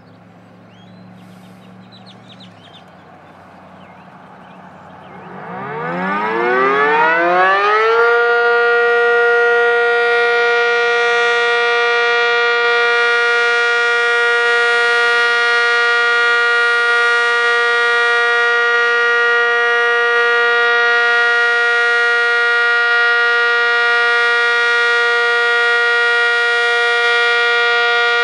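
ACA Cyclone dual-tone outdoor warning siren, running without its top lid, winding up: it starts about five seconds in and rises in pitch for about three seconds, then holds a loud, steady tone.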